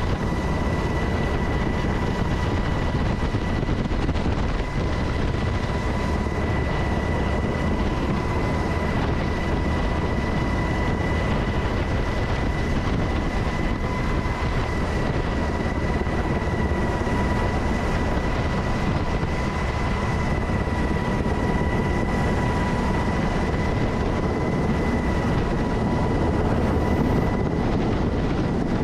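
Turbine aircraft engines running: a steady, unbroken roar with a constant high whine on top.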